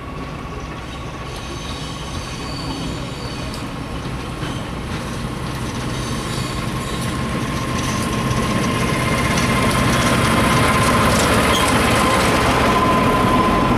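Diesel train approaching and growing louder over about ten seconds, then holding steady. A steady high whine runs through the sound.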